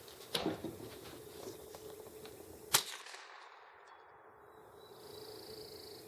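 A single sharp crack about three seconds in, a shot from a Ruger 10/22 semi-automatic .22 rifle. A duller knock comes about half a second in.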